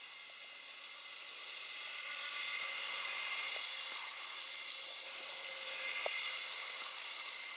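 Model railway train running on the track: a steady electric-motor whine with wheels clicking over the rail joints. It grows louder as the train passes close, about two and a half seconds in and again about six seconds in.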